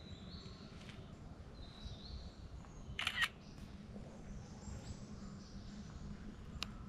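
Faint outdoor ambience with a steady low hum and short, high calls of birds. About three seconds in a brief, sharp, louder sound stands out, and near the end there is a single click.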